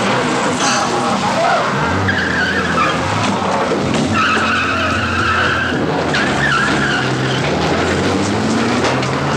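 A car engine running with its tyres squealing on a smooth floor, the squeal loudest about four to six seconds in and coming again briefly just after.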